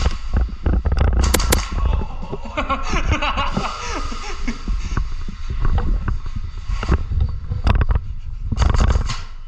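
Airsoft gunfire: rapid runs of sharp snapping shots, clustered about a second in and again near the end, over a low rumble of wind and movement on the microphone.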